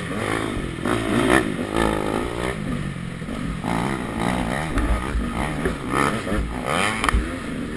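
KTM 200 XC-W single-cylinder two-stroke dirt bike engine revving up and down, the pitch rising and falling with the throttle, with sharp knocks and clatter from riding over rough, muddy ground.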